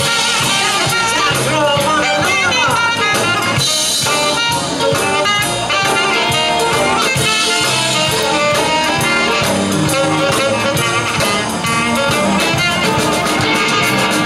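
Live rhythm-and-blues band playing, with a horn section of trumpet and trombone over electric guitar, drum kit and congas.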